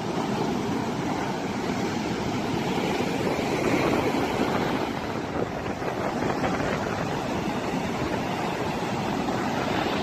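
Sea surf breaking and washing up a sandy beach: a steady rush of waves with a slight swell about three to four seconds in.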